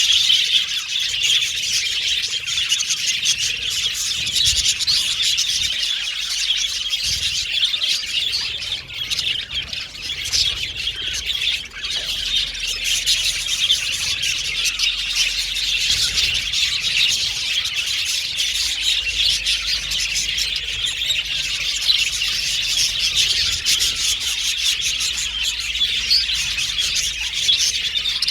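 A flock of budgerigars (budgies) chattering and chirping continuously, many overlapping warbles and sharp squawks at once.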